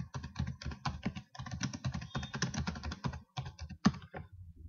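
Fast typing on a computer keyboard: a quick run of key clicks with a brief pause about a second in. The clicks thin out and stop near the end, with one sharper keystroke just before they stop.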